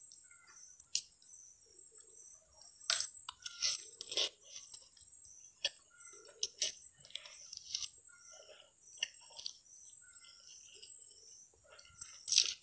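Close-up eating sounds of a person slurping and chewing noodles: short wet mouth smacks and slurps coming in irregular clusters.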